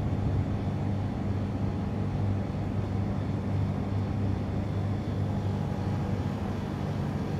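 Steady low machine hum with an even drone, no change in pitch or level.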